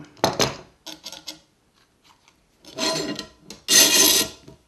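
Steel F-clamp's sliding jaw rasping along its bar as it is worked by hand: a short scrape just after the start and two longer rasps in the second half, the last one the loudest.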